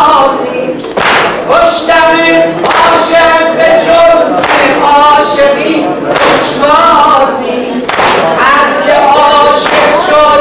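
A man chanting a religious lament solo in a loud, full voice, holding and bending long notes. A sharp slap cuts in every second or two, in time with his hands swinging down to strike his chest.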